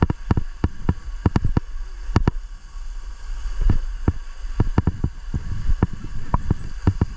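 Irregular sharp clicks and knocks, two or three a second, over a steady low rumble.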